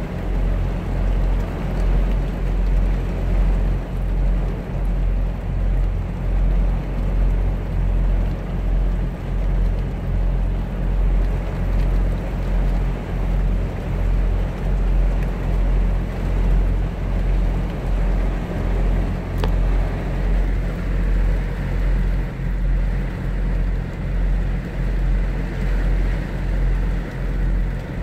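Rain falling on a Kenworth semi truck's windshield and cab, heard from inside the cab, over the low, steady rumble of the truck's idling diesel engine, which pulses gently and evenly.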